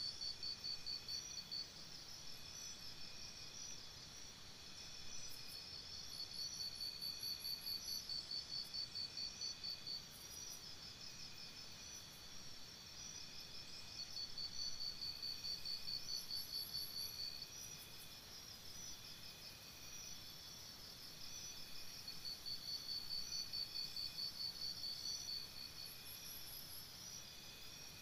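Crickets chirping in fast pulsed trills, each a few seconds long, separated by short pauses, over a faint steady hiss.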